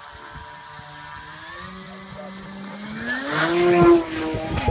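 RC model airplane's motor and propeller whining steadily at low throttle, then rising smoothly in pitch for about a second near the end as the throttle is opened. A sharp knock comes right at the very end.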